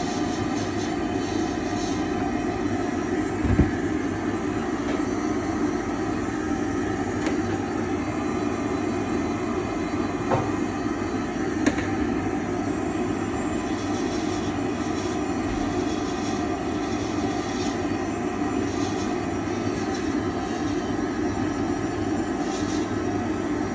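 Steady drone of a dental lab dust-extraction work box running while a milled zirconia restoration is trimmed with a bur in a handpiece, with a few faint clicks.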